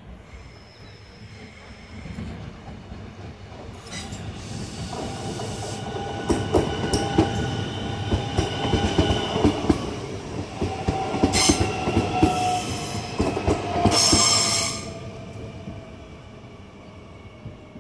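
Öresundståg electric multiple unit passing close by: a rising rumble of wheels on rail with rapid clicks over the rail joints and steady high whining tones over it, loudest as the train goes by, then dropping away quickly near the end.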